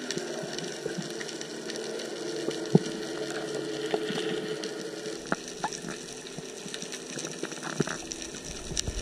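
Underwater ambience picked up by an action camera submerged in the sea: a steady, muffled water noise with a faint hum and many scattered small clicks and crackles.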